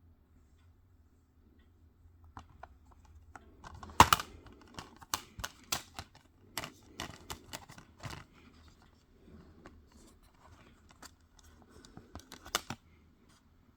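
Plastic Blu-ray cases and their packaging being handled: a loud click about four seconds in, then a run of sharp clicks and rustling.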